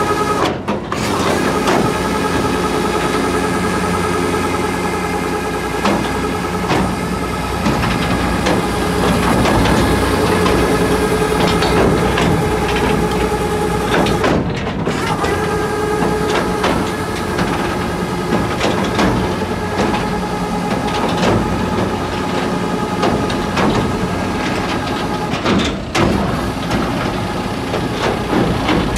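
John Deere tractor engine running steadily and driving the Schuitemaker Feedo feed wagon's roller unloading mechanism through the PTO. It makes a constant mechanical drone with a light whine and some clatter, broken briefly a few times.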